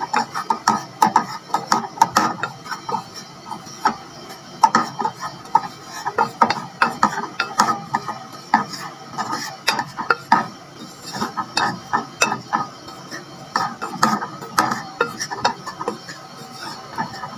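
Wooden spatula scraping and knocking against the bottom and sides of a metal pot while stirring flour into melted butter for a gravy roux: a quick, uneven run of scrapes and taps.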